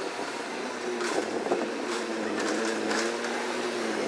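Forklift running with a steady motor hum while it moves a load of stacked plastic crates, with a few sharp clatters of crates about one to two seconds in.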